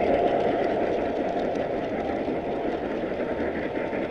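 Model train rolling along its track, heard from a camera riding on the train: a steady rumble of wheels on rail with a faint steady whine from the drive.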